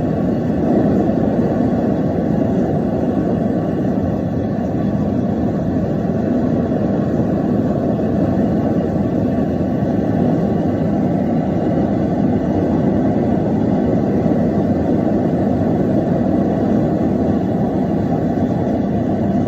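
Forge running with a steady, even rushing noise while a steel billet of transfer case chain heats toward forge-welding heat.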